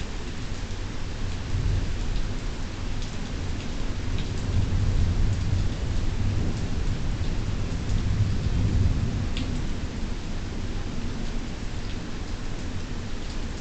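Thunder rolling in a long, low rumble over steady rain. It builds in the first couple of seconds, is loudest in the middle, then fades away. Raindrops tick now and then through the hiss of the rain.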